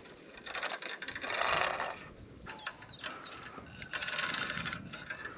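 Spinning reel on a bolognese float rod being wound in, a fast whirring clatter of gears in two spells, about a second in and again near four seconds.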